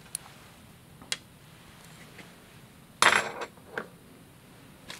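Small metal clinks: a hex key and small screws clicking and clattering against the CNC machine's rail parts as the screws are taken out. A few light clicks, then a louder short clatter about three seconds in.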